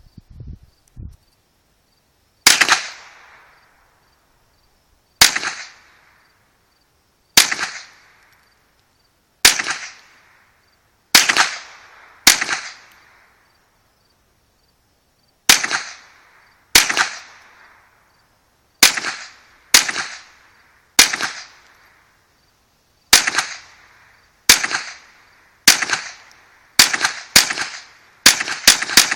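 Mossberg 715T .22 LR semi-automatic rifle fired shot after shot, each crack trailing off in a short echo. The shots come every one to two seconds at first, then quicken into a rapid string near the end.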